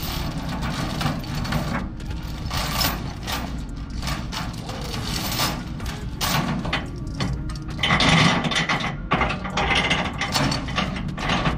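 Steel tie-down chain clinking and clanking irregularly as it is handled and dragged over a stack of steel plates on a flatbed trailer, with the loudest clanks about 8 seconds in.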